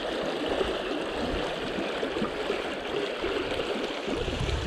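Small rocky stream running, a steady rush of flowing water.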